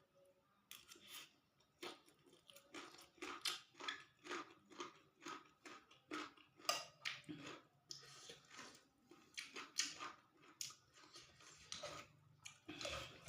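A person chewing fried rice vermicelli with tofu close to the microphone: a run of soft, wet mouth smacks and clicks, about one or two a second.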